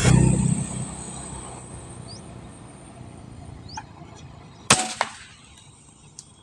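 An air rifle firing a 15-grain BST slug at a perched spotted dove: one sharp crack about three-quarters of the way in, followed a moment later by a fainter second crack. A low rumble dies away in the first second, and a few faint bird chirps sound here and there.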